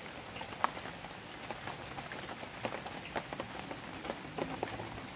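Rain falling onto a shallow stream and the plants along it: a steady hiss of rain with many separate sharp drop ticks.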